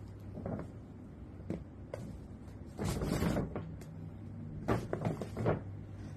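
Stiff paper shopping bag rustling and scraping as it is lifted and slid off a rigid cardboard gift box. There is one loud swish about three seconds in and a quick cluster of rustles a little before the end.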